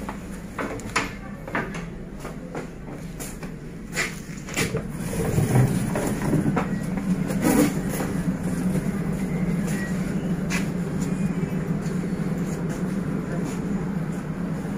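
Interior noise of a passenger train coach: sharp clicks and knocks for the first few seconds, then a steady low rumble that grows louder about five seconds in and holds.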